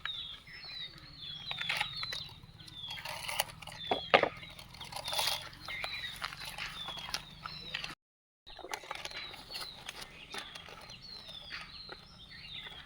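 Birds chirping over and over in short falling notes, with scattered sharp clicks and knocks in between. The sound drops out completely for a moment about eight seconds in.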